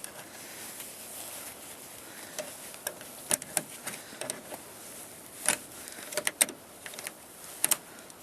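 Irregular sharp metallic clicks and taps, about a dozen, starting about two seconds in, from the door handle and latch parts of a Chevy Astro's driver door being worked by hand.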